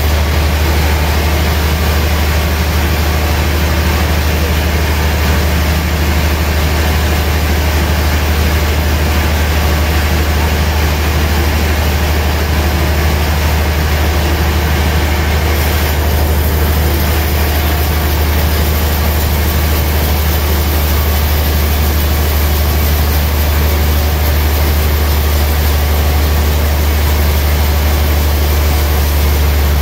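Large sawmill band saw running steadily while its blade cuts through a slab of gayam wood. The sound is loud and constant, with a deep hum underneath.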